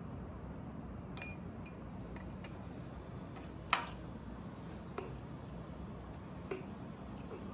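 Eating utensils knocking on bowls: a few light ticks, then a sharp clack with a brief ring a little under four seconds in as chopsticks are laid across a ceramic bowl, followed by softer taps of a fork in a bowl of pasta. A steady low hum runs underneath.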